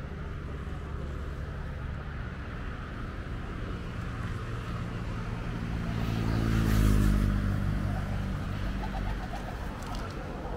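A motor vehicle passing close by: its engine sound rises to a peak about seven seconds in, then falls away with a dropping pitch, over a steady low hum of engines.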